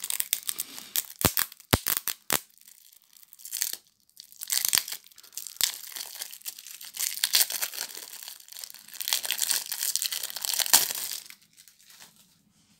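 Plastic shrink wrap crinkling and tearing as it is peeled off a deck of trading cards. There are a few sharp crackles in the first couple of seconds, then longer stretches of crinkling, which stop about a second before the end.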